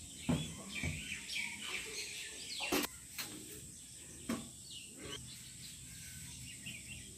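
Birds chirping in the background, with a few short knocks and clicks as unpeeled potatoes are cut on a floor-mounted blade and handled over a steel plate.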